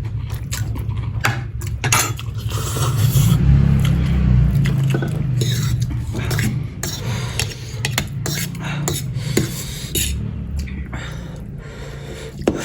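Cutlery clinking and scraping against a plate during a meal, many short irregular clicks.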